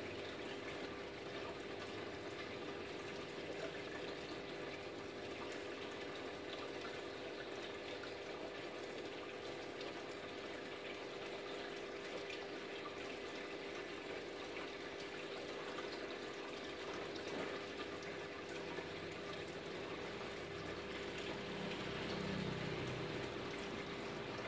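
Aquarium filter and aeration running: a steady trickle and splash of water with a constant hum.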